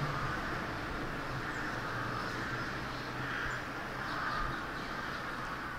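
Quiet outdoor ambience beside a canal: a steady background hiss with a few faint distant bird calls.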